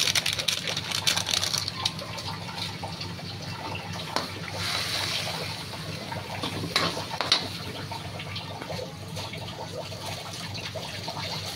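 Water poured in a thin stream into the sauce in a wok, splashing into the liquid, with a metal spatula knocking against the pan a few times around the middle.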